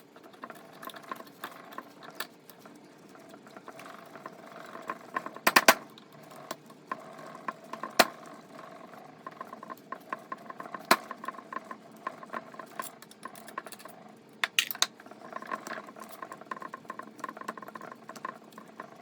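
Small metal clicks, ticks and rattles from removing valve springs, retainers and keepers from a small-block Chevy cylinder head, with a handful of sharper clacks of parts knocking together spread through.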